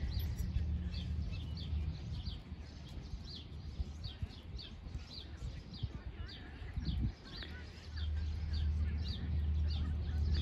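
Songbirds chirping, a steady run of short, high, downward-sliding notes a few times a second, over a low outdoor rumble.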